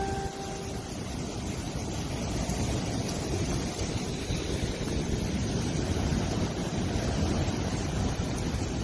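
Strong, gusty wind rushing and buffeting the phone's microphone, with the tornado storm's wind building slightly over the seconds. A brief ringing tone sounds right at the start.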